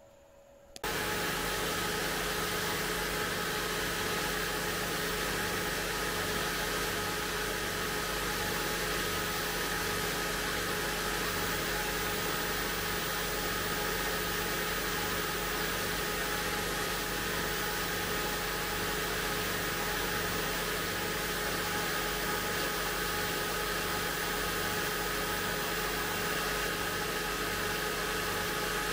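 Benchtop spindle sander running steadily as a pine part is sanded against its drum; the machine noise starts abruptly about a second in and stays even, with a steady hum.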